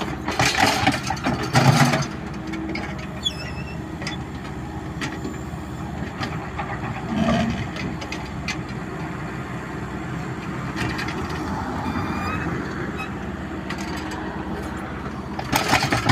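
A heavy engine running steadily, with louder noisy bursts about half a second to two seconds in and again near the end.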